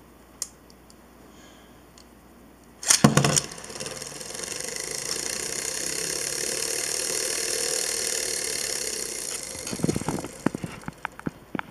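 Wolborg 4 Beyblade ripped from its launcher and landing in a plastic stadium with a loud clatter about three seconds in, then spinning with a steady high whir for several seconds, its engine gear wound up beforehand. Near the end come a few scattered clicks and knocks.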